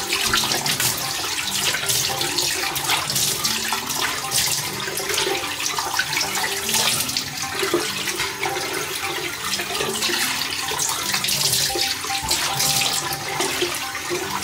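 Bathroom sink mixer tap running into the basin, with water splashing as it is scooped up in cupped hands and rinsed over the face.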